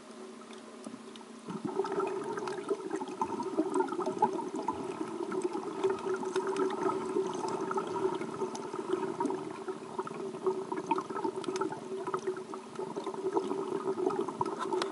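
Underwater sound picked up by a submerged camera: water sloshing with many scattered crackling clicks over a steady hum, getting louder about a second and a half in.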